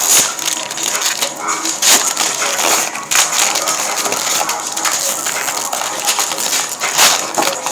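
Plastic-foil wrapper of a trading card pack crinkling and tearing as it is opened and handled, with many small crackles.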